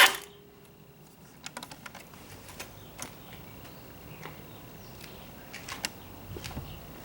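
Motorcycle starter cranking cuts off abruptly at the very start, leaving a quiet stretch of faint, scattered clicks and light taps, with a few louder ticks a little under six seconds in.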